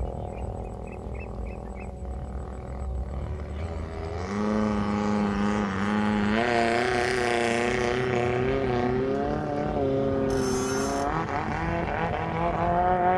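Boat engine running on the canal, a low rumble at first that grows much louder about four seconds in as a boat comes close, then holds a steady high pitch that wavers a little as it passes.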